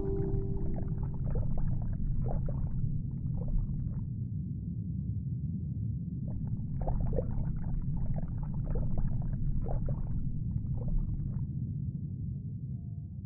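Underwater ambience sound effect: a steady low rumble with scattered bubbly crackles and clicks that come in clusters, fading out near the end.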